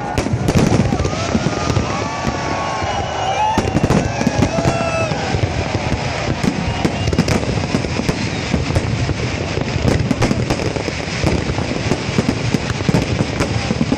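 Fireworks going off in a dense, continuous stream of pops and crackles. Voices call out over it in the first few seconds.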